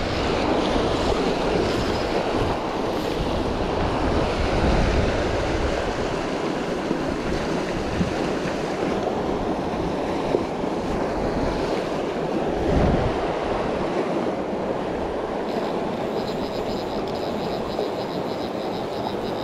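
The Arkansas River rushing over rocks close by: a steady noise of fast, broken water. Near the end, a fast even run of clicks from a fly reel being wound in.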